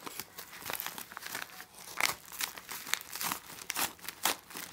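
Yellow padded mailer envelope being torn and pulled open by hand: paper ripping and crinkling in irregular bursts.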